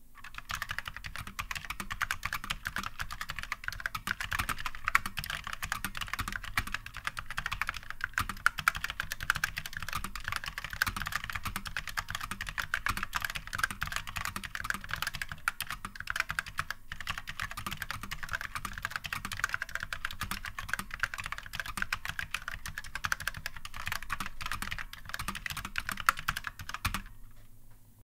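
Fast, continuous touch-typing on a vintage Olympia typewriter keyboard module fitted with Mitsumi standard mechanical cross-mount linear switches, a dense stream of key clicks that stops about a second before the end.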